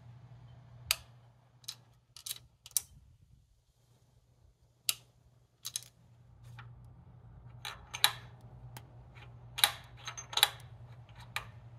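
Sharp metal clicks and light taps of hand tools on a Porsche 944 engine's aluminium oil cooler housing, irregularly spaced, with a cluster of them near the end. A faint steady low hum runs underneath.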